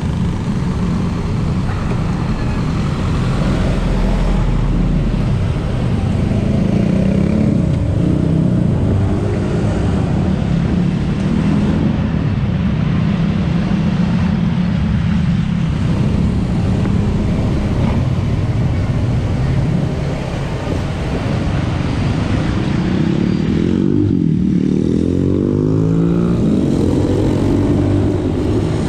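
Motorcycle engine running steadily while riding in traffic, its note rising and falling with the throttle a few times, most clearly near the end. The sound is muffled and full of road and wind noise because it is picked up through the camera body with its microphone removed and the plug-in hatch closed.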